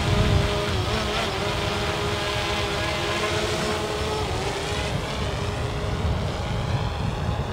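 Drone propellers whining steadily, the pitch wavering as it manoeuvres. A set of higher tones rises over the last two seconds or so.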